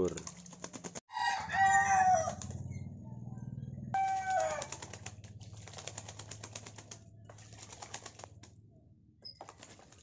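A crow bathing in a basin of water, splashing and beating its wings in quick runs of splashes. Two loud pitched calls cut in, a longer one about a second in and a shorter one about four seconds in.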